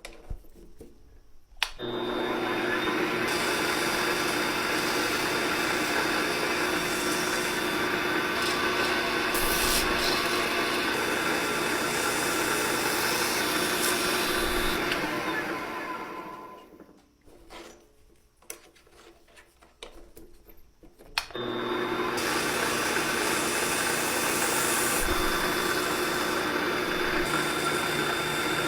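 Small electric power tool running steadily with a high whine, working on the metal. It starts about two seconds in, stops about halfway, and starts again near the three-quarter mark, with a few clicks while it is off.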